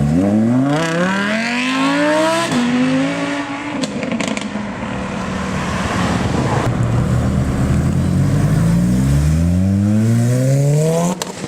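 High-performance car engine accelerating hard: the revs climb steeply for about two seconds, drop sharply at a quick upshift, and after a rougher stretch climb again until they cut off just before the end.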